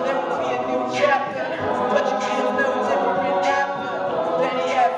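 Mixed-voice college a cappella group singing a pop mash-up in harmony, voices only with no instruments.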